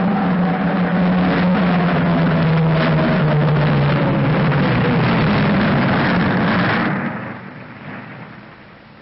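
Twin-engine propeller airliner coming in low to land and passing overhead: a loud engine drone whose pitch falls as it goes by, then dies away about seven seconds in.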